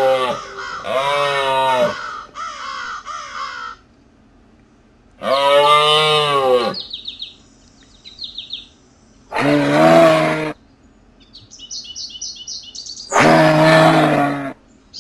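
Moose calls: four long, drawn-out moans, each about a second and a half, arching up and then down in pitch, with a fainter call between the first two. Short, quick bird chirps come in the gaps.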